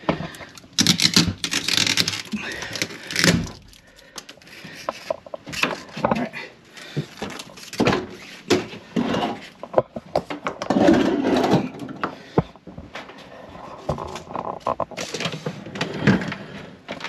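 Hands scraping, rustling and knocking against a chest deep freezer's cabinet while its taped-up power cord is freed. The noises are irregular, with a louder run of scrapes about a second in and again near the middle.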